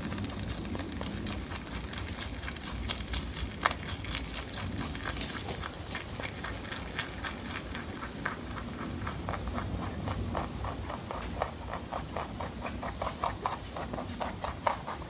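Mini lop rabbit chewing a cauliflower leaf: a quick, steady run of crisp crunching clicks, several a second.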